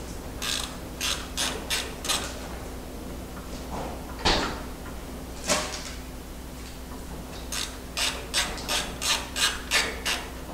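Ratchet wrench clicking in short runs, about four clicks a second, as a hex bolt on a CNC router's motor mount is tightened. Two louder metallic knocks come midway.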